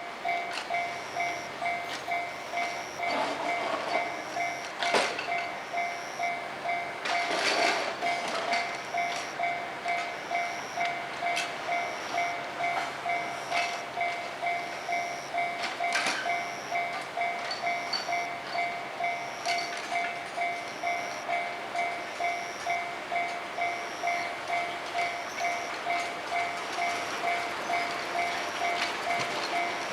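Japanese railway level-crossing warning alarm ringing, a steady ding repeated at an even rhythm. A few louder knocks stand out about five, seven and sixteen seconds in.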